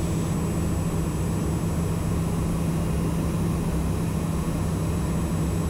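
Steady cockpit drone of a Socata TBM 910's Pratt & Whitney PT6A-66D turboprop engine and propeller in the climb, an even low hum with rumble beneath it.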